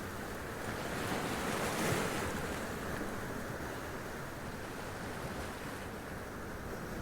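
Sea waves washing up over rocks and splashing, a steady surging wash with one swell of the surf about a second or two in.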